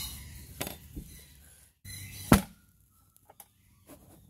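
A single sharp knock on wooden boards about two seconds in, with a few faint taps and clicks around it.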